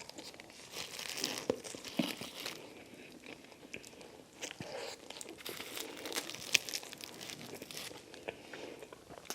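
Close-miked crinkling of a paper food wrapper with scattered crunches as fast food is handled and bitten, in short irregular bursts.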